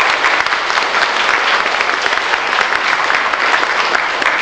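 Audience applauding: steady, sustained clapping from many hands.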